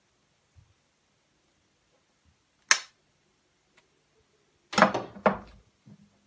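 A few sharp kitchen clicks and knocks of a metal fork against a ceramic plate: one sharp click about two and a half seconds in, a faint tick, then a quick cluster of knocks near the end.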